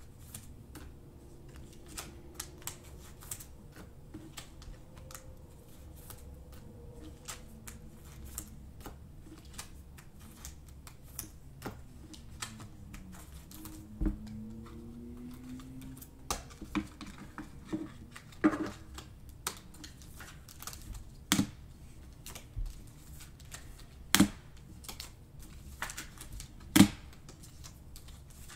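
Panini Prizm trading cards being flipped through and handled: a steady run of light clicks and snaps of card stock, with plastic pack wrapping handled, and a few louder snaps in the second half.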